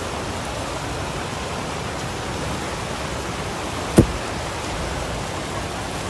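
Rushing mountain river water, a steady even rush, with one sharp click about four seconds in.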